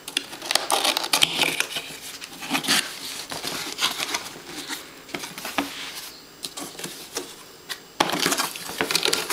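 Cardboard box being opened by hand: flaps and lid scraping and rustling in irregular bursts, with small knocks and a sharp click about eight seconds in.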